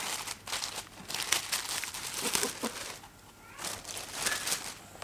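Clear plastic packaging bag crinkling and rustling in irregular handfuls as a pair of shoes is worked out of it. It pauses briefly about three seconds in, then crinkles again.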